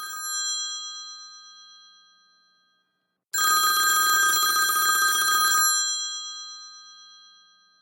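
iPhone 'Old Phone' ringtone, the sound of an old electric telephone bell. A ring from just before fades out over the first two seconds, then after a short silence comes a fresh burst of rapid bell ringing about two seconds long, which dies away slowly.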